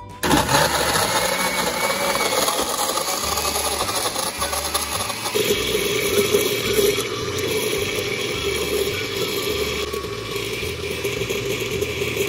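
Oster Duralast Classic blender switched on and running, chopping ice and pineapple pieces in a piña colada mix with a rattling churn. About five seconds in the sound settles into a steadier hum as the blend turns smooth.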